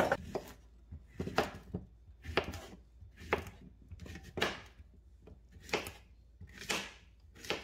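Kitchen knife slicing a zucchini into rounds on a wooden cutting board, each cut ending in a knock of the blade on the board, about one cut a second.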